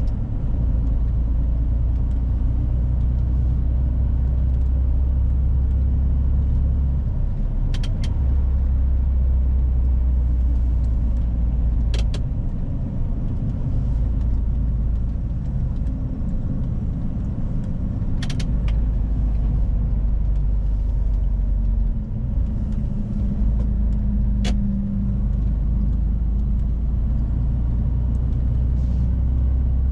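A Mercedes-Benz Arocs truck's six-cylinder diesel engine, heard from the cab while driving: a steady low drone that drops away briefly several times, with a few sharp clicks.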